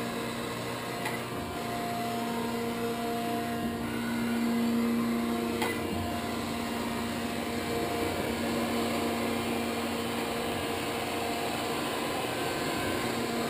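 Gallmeyer & Livingston Grand Rapids 560 surface grinder running steadily, its motors and hydraulic unit giving a continuous hum with a few held tones that grow stronger and weaker. There is a faint click about a second in and another near six seconds.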